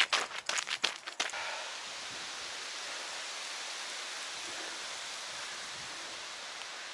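Running footsteps on a path, about four or five quick steps a second, stopping a little over a second in; then a steady, even hiss.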